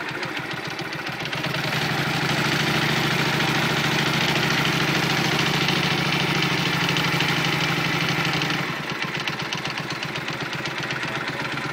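Mudboat's mud motor running. It speeds up about a second and a half in, holds steady, then eases back to a lower speed about nine seconds in.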